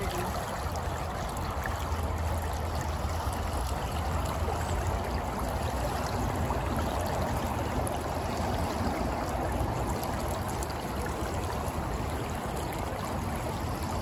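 Shallow creek water flowing steadily, churning through a swirling eddy and around a mossy stump.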